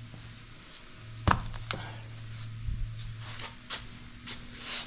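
Metal clinks and knocks of tools and parts being handled on an engine during a tear-down, with one sharp clank about a second in and several lighter taps after it, over a steady low hum.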